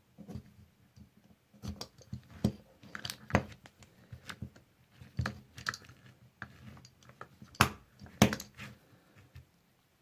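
Irregular clicks and knocks of a metal connector clamp tool being handled on a workbench, with its knurled thumbscrew worked and a plastic battery connector freed from it. Two louder knocks come about three quarters of the way in.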